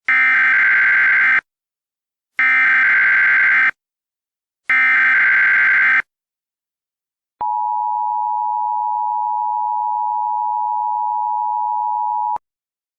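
Emergency Alert System SAME header: three identical data bursts about a second apart. Then comes the EAS two-tone attention signal, a steady 853 and 960 Hz pair held for about five seconds and cut off abruptly, marking the start of a new emergency alert.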